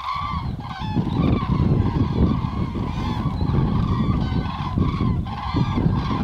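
A large flock of common cranes calling in flight: many trumpeting calls overlap without a break. A strong low rumble runs underneath.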